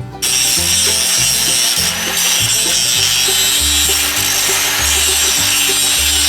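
Angle grinder grinding a bevel into the steel of a backhoe bucket where a tooth broke off, preparing it for welding. It starts about a quarter second in and runs on as a steady hissing rasp. Background music with a bass line plays underneath.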